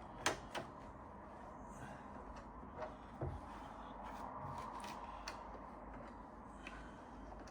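A few light clicks and knocks, like small parts being handled, over a faint steady hum.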